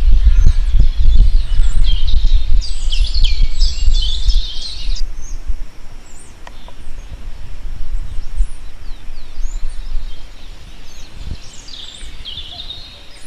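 Many small birds chirping and calling, busiest in the first few seconds and picking up again near the end, over a low rumble that is strongest in the first half.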